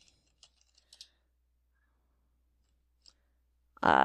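A few faint computer-keyboard key clicks as code is typed, followed near the end by a short hummed voice sound.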